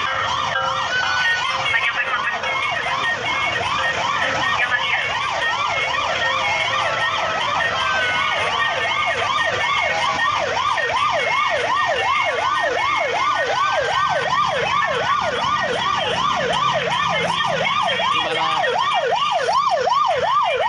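Several vehicle sirens sounding at once in a fast yelp, each sweep rising quickly and repeating about three times a second. One yelp comes to the fore from about eight seconds in.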